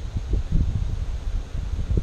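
Wind buffeting the microphone: irregular low rumbling gusts.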